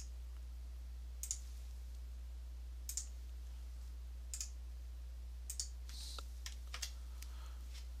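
Scattered faint clicks from a computer mouse and keyboard, roughly one a second, over a steady low hum.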